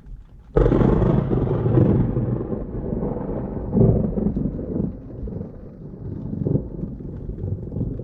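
Close thunderclap: a sudden crack about half a second in, then a low rumble that rolls on in swells and fades over several seconds.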